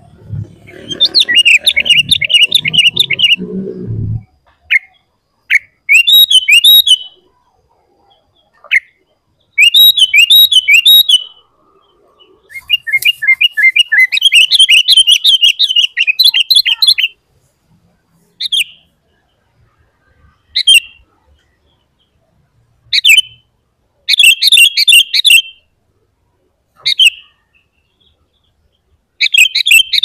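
Sooty-headed bulbul calling in quick chattering bouts of rapid high notes, each bout lasting from under a second to about four seconds, about a dozen times with short pauses between.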